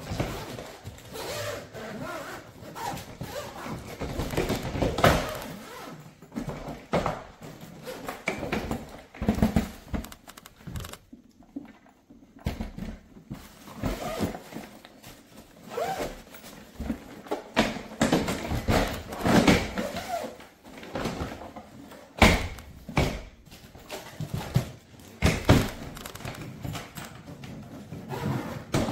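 Irregular knocks and thuds, like objects being handled and set down, with faint indistinct sounds between them.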